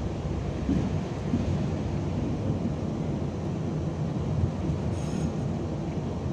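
Tatra T6A5 tram running along the track, heard from inside the passenger cabin: a steady low rumble of wheels on rails and running gear. A brief faint high squeal comes about five seconds in as the tram takes a curve.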